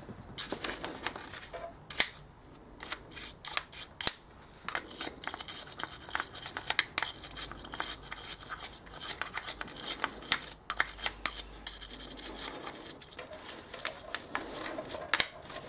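A small wire brush scrubbing the chrome-plated pistons of a Kawasaki GPZ500 front brake caliper in quick, irregular scratchy strokes, scouring off rust and crud before the pistons are pushed back in.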